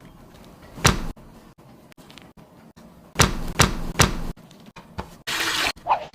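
A few sharp knocks: one about a second in, then three in quick succession, followed by a short burst of hiss near the end.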